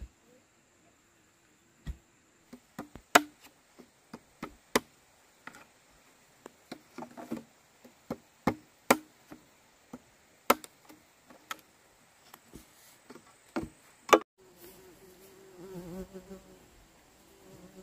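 Irregular sharp knocks and taps, some much louder than others, then about fourteen seconds in a steady buzzing drone with a wavering pitch.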